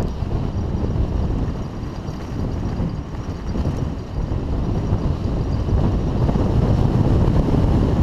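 Wind rumbling on the microphone of a GoPro Hero3 riding on a Haro hardtail mountain bike, mixed with the tyres rolling down a dirt trail at speed. The noise is steady and grows somewhat louder over the second half as the bike picks up speed.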